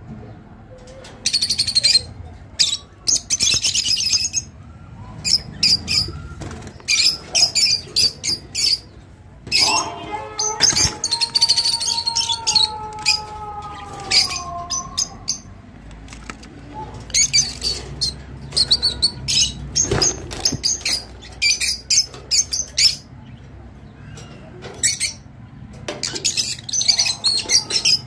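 A group of rosy-faced (peach-faced) lovebirds chattering: fast, irregular runs of short, high-pitched chirps with brief pauses between them.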